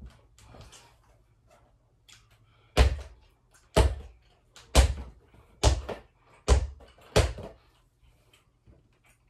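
Mini basketball dribbled on a hardwood floor: six sharp bounces about a second apart, after a few lighter knocks.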